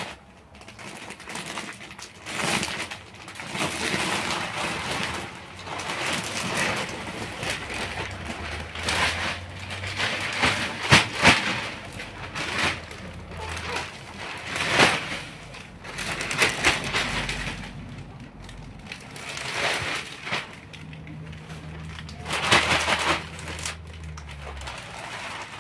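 Hand work in garden soil: irregular scraping and knocking as a bed is dug over. Near the end comes the rustle of a plastic sack of soil being handled and tipped out, and a low steady hum runs underneath from about a third of the way in.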